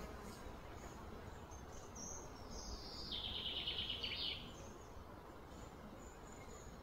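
Outdoor background hum with a high animal call about two seconds in that slides down in pitch and then breaks into a fast, buzzy trill for about a second; faint high chirps come and go.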